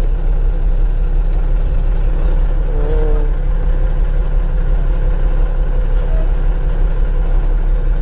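Ford L9000 dump truck's diesel engine running with a steady low drone, heard from inside the cab.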